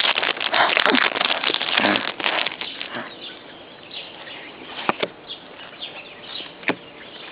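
A Yu-Gi-Oh booster pack wrapper being torn open and crinkled for about three seconds, then quieter handling of the cards with a few light clicks.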